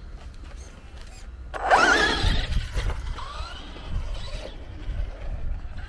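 Traxxas Rustler 4x4 VXL RC stadium truck's brushless motor and drivetrain whining as it pulls away across the turf, a loud rising whine about two seconds in, then fainter rising and falling runs.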